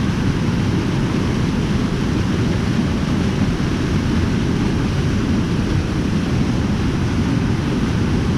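Waterfall's deep, steady rush of falling water, unbroken throughout.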